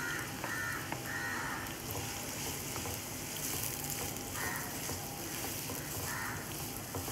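Chopped onions sizzling steadily in hot oil in a nonstick kadai, just added and being stirred with a wooden spatula.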